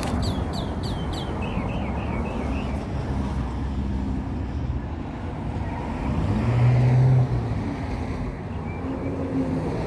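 A vehicle engine running with a steady low rumble, and a louder low hum for about a second past the middle.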